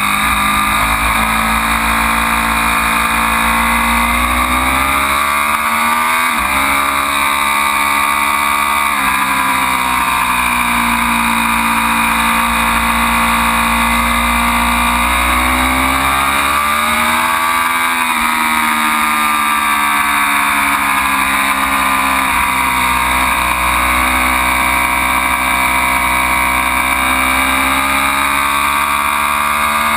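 Ducati Panigale V4 motorcycle's V4 engine running hard around a circuit, its pitch repeatedly climbing under acceleration and falling away, with sudden steps in pitch at gear changes.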